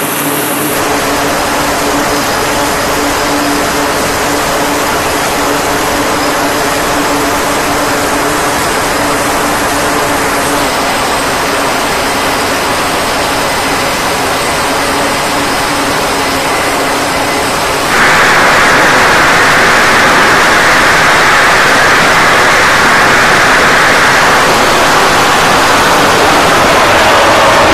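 F/A-18 fighter jet engines running loudly on a carrier flight deck, with a faint high whine in the first part. About two-thirds of the way in, the noise jumps abruptly louder and holds there, as a jet goes to full power on the catapult ahead of a launch.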